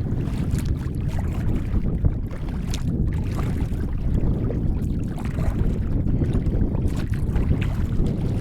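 Wind buffeting the microphone in a steady low rumble, over water lapping against a kayak's hull, with a few faint small slaps and knocks.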